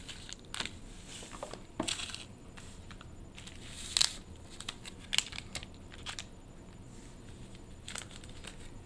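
Foil Pokémon booster packs being handled and picked from a box: scattered crinkles, rustles and light taps, with one sharper click about four seconds in.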